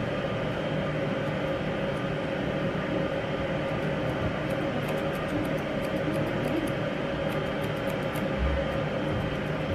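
Steady machine hum with a held tone, with faint, quick snips of grooming scissors cutting the fur around a Bichon Frise's face.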